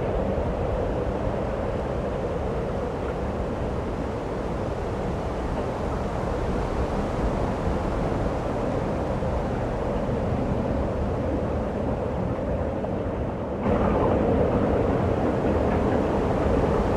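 Steady rushing wind of a snowstorm, with no distinct strokes or tones; it cuts abruptly to a slightly louder stretch about fourteen seconds in.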